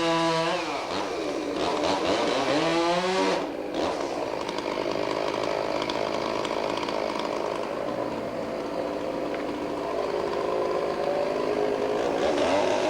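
Chainsaw running hard with a wavering pitch. It drops back briefly about half a second in and revs up again, then settles to a lower, steadier speed from about three and a half seconds. It climbs again near the end.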